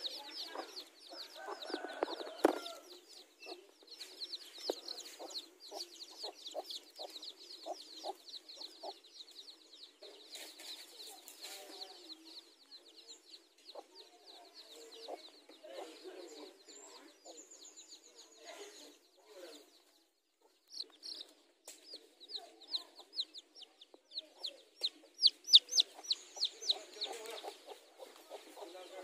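A brood of chicks peeping in rapid short high notes while the mother hen gives short, low, evenly spaced clucks. There is a single sharp knock about two seconds in, and a louder burst of peeping near the end.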